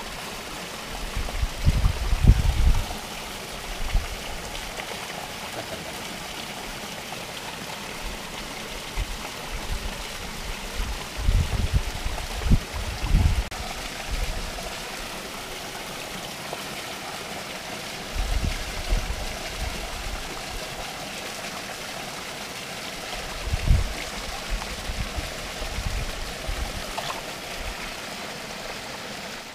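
Mountain trout stream running over rocks, a steady rush of water. Several dull low thumps come and go over it.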